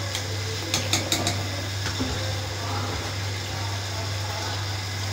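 A bowl clinking several times against the rim of a metal cooking pot about a second in, as soaked rice is tipped into boiling water, over a steady low hum.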